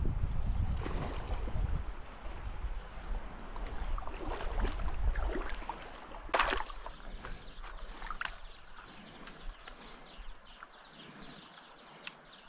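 Wading through a shallow gravel-bed river: water swishing and splashing around the legs, with wind buffeting the microphone at the start and one louder sharp sound about six and a half seconds in. The sound fades steadily quieter toward the end.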